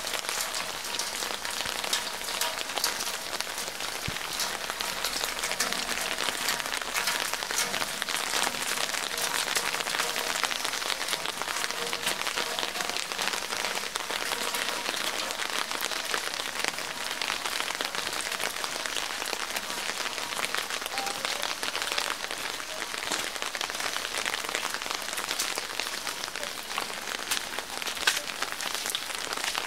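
Steady rain falling: a dense, even patter of many small drops.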